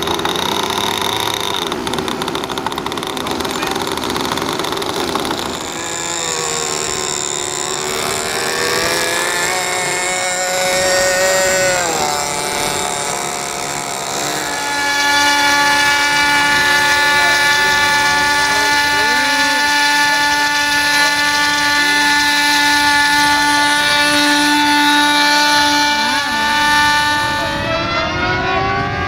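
Several Weston UK Velocity 50 model aircraft engines being run up: at first their pitches rise and fall as they are revved, then from about halfway several run together at a steady high pitch. Near the end the pitches bend as the models fly past.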